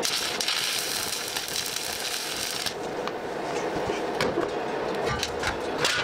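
Workshop hand-work noise on a steel stand frame: a steady scraping hiss for about two and a half seconds, then scattered light clicks and knocks as metal parts are handled.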